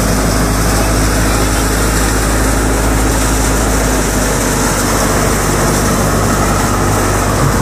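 Drum-type threshing machine running steadily under load with a constant low hum and dense mechanical noise, as dry crop plants are fed into it.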